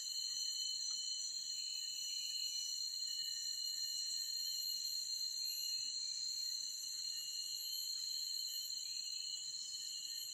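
Chorus of forest insects: several steady, high-pitched trills layered together without a break, with a few faint short chirps from about halfway in.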